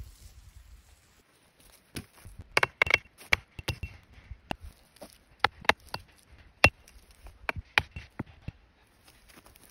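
Hammer driving a stake into the ground: about a dozen sharp strikes at an uneven pace, starting about two seconds in, some with a brief ring.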